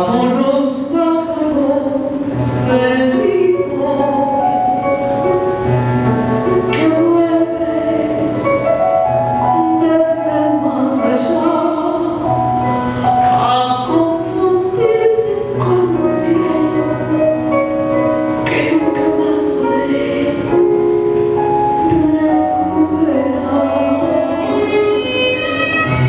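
A woman singing a tango in Spanish into a microphone over instrumental accompaniment, with long held melodic notes.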